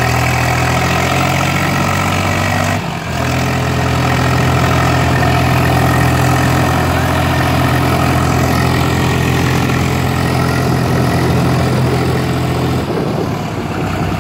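Swaraj 735 tractor's three-cylinder diesel engine running steadily while hauling a trolley loaded with soil over soft ground. It breaks off briefly about three seconds in, then carries on and drops away near the end.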